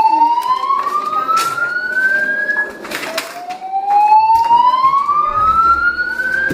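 Building fire alarm sounding a slow, rising whoop tone that sweeps steadily up in pitch for nearly four seconds, breaks off, and starts again from low for a second sweep. It is the building-wide evacuation signal that alternates with a recorded voice message telling occupants to leave by the stairs.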